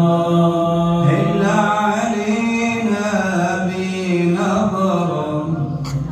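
Unaccompanied devotional Arabic chanting of prayers on the Prophet (salawat), sung in long drawn-out melodic notes.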